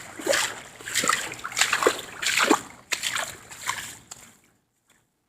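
A person wading through deep floodwater, legs sloshing and splashing with each stride, about one splash every second or less. The splashing stops abruptly about four seconds in.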